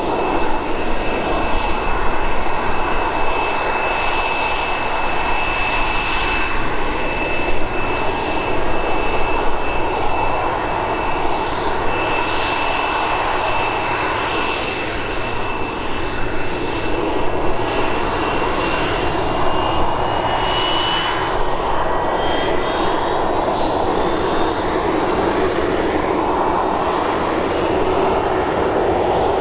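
A McDonnell Douglas MD-82's tail-mounted Pratt & Whitney JT8D turbofans idling, a steady engine noise with a high whine. The whine creeps up in pitch from about two-thirds of the way through.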